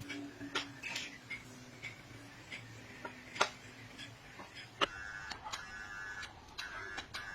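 Irregular light clicks and taps, roughly two a second, over a faint steady hum. From about five seconds in, a higher buzzing tone comes and goes.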